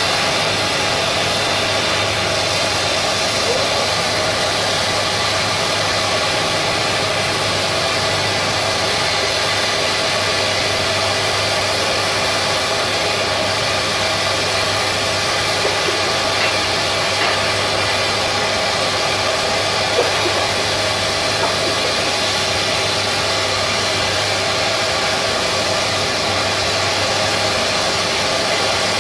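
Steady, loud drone of shipyard machinery: an even hiss over a low constant hum.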